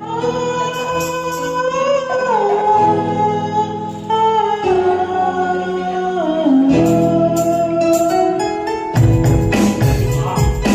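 Music: a melody line that steps and slides in pitch over sustained chords. A percussion beat comes in about nine seconds in.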